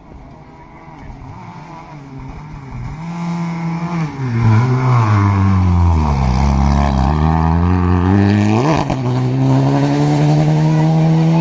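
Renault Clio rally car on a gravel stage, its engine growing louder as it approaches. The revs drop as it slows, a sharp crack comes about two-thirds of the way through, and then it pulls away, holding high revs.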